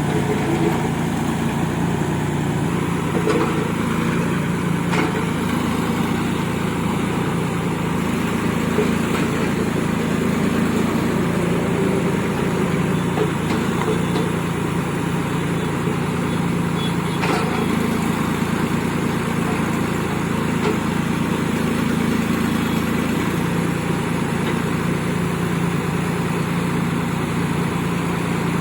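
Diesel engine of a Massey Ferguson (TAFE) 9500 tractor carrying a backhoe loader, running steadily, its pitch shifting a little now and then. Two brief clicks come about a third and two-thirds of the way through.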